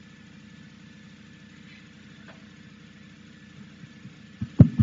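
Steady low buzzing hum, then two loud thumps close together near the end.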